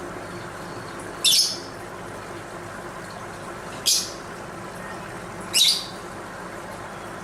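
Lovebird giving three short, shrill squawks a couple of seconds apart, over steady background noise.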